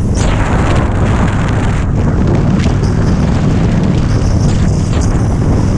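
Harley-Davidson Dyna Street Bob's V-twin engine running at highway speed, under loud, steady wind buffeting on the microphone.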